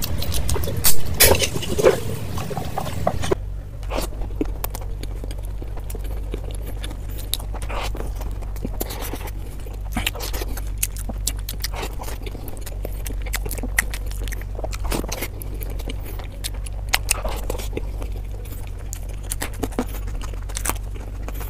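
Close-miked eating sounds: sticky, wet handling of sauce-coated chicken pieces by hand for the first few seconds. Then, after a sudden change in the sound, chewing and mouth clicks of boiled eggs in curry over a steady low hum.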